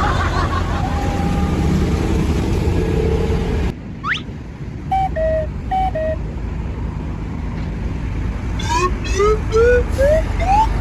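Traffic and vehicle engine noise, then after a sudden cut a multi-tone electronic bus horn of the 'telolet' kind. It plays a quick rising whistle, a two-note falling toot twice, and then a run of short rising whoops climbing in pitch.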